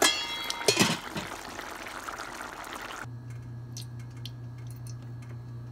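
Thick potato-and-pea gravy simmering in a pan, bubbling with a few loud pops in the first second. About three seconds in it cuts off abruptly to a steady low hum with a few faint ticks.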